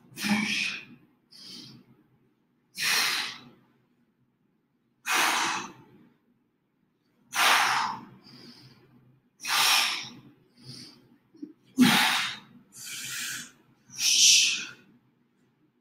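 A person breathing hard during an exercise set: a sharp, forceful exhale about every two and a half seconds, seven in all, with a fainter, shorter breath between most of them.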